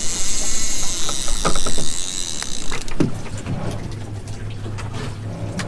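Handling noise on a fishing boat, a few clicks and knocks over a steady hiss, then from about three seconds in a steady low hum of an idling boat engine.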